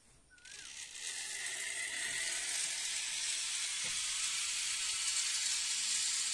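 Zip line trolley pulley running along the steel cable as a rider slides away: a steady hiss that builds over the first second or so and then holds.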